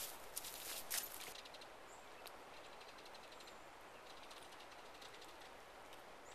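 Footsteps crunching on dry grass and ground for about the first second and a half, then the steady rush of a shallow, rocky river flowing.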